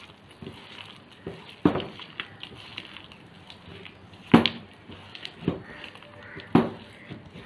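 A hand mixing thick urad dal flour batter with chopped onion in a stainless steel bowl: wet slaps and squelches at an irregular pace, with two louder slaps, one a little past the middle and one near the end.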